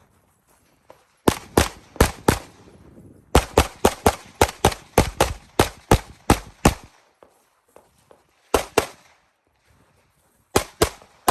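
Rapid 9mm pistol fire during a competition stage: four quick shots, then a fast string of about a dozen shots in under four seconds, a pair, and after a pause another fast string starting near the end.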